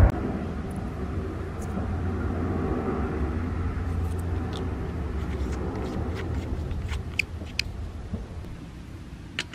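A vehicle engine running with a low rumble that slowly fades over several seconds. A few small, sharp clicks come from a coin-cell battery and cap being fitted into a tire pressure sensor.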